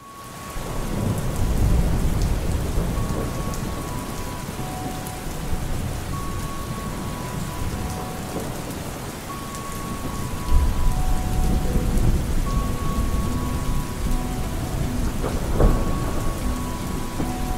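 Steady heavy rain with rolling thunder that swells several times, loudest about ten and fifteen seconds in. A few faint held notes sound softly beneath it.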